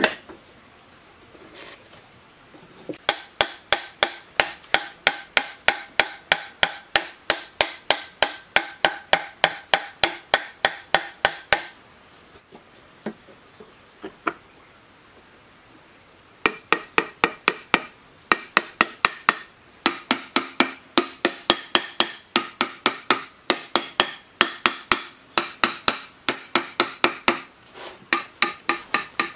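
Quick, light hammer taps on a cast-iron water pump motor's end cover, about three or four a second, each with a short metallic ring. They come in two long runs with a pause of a few seconds between them, as the cover is driven down onto the motor housing.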